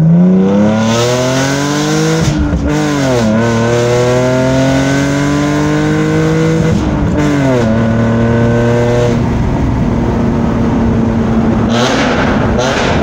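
BMW E46 with aftermarket headers and a full stainless-steel exhaust pulling through the gears, heard from inside the cabin: the engine note climbs, drops at an upshift about two and a half seconds in, climbs again and drops at a second upshift about seven seconds in, then holds steady. A brief, rougher burst of noise comes near the end.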